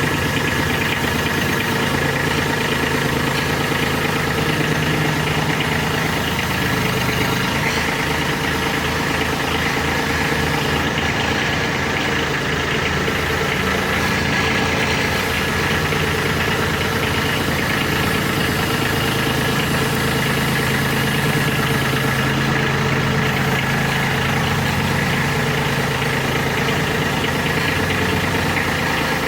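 An engine running steadily with an even, low pulsing rhythm.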